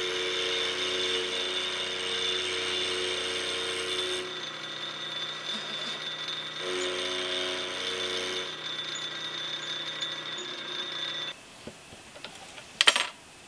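Milling machine running, its end mill cutting a raw cast-iron bearing block held in the vise, with the note shifting a few times during the cut. The machine stops about eleven seconds in, and near the end comes a short burst of metal-on-metal clinks as the part is handled.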